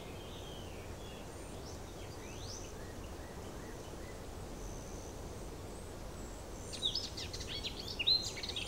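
Outdoor ambience: a steady background hiss with small birds chirping, faint at first, then a run of quick falling chirps near the end.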